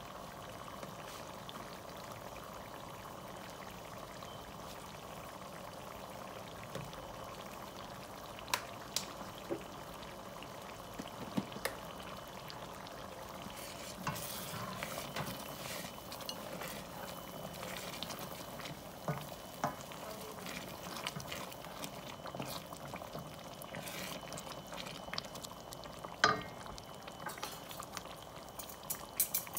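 Spicy butter seafood boil sauce simmering in a stainless steel pot, a steady bubbling hiss. From about halfway a wooden spoon stirs it, with scattered light knocks against the pot.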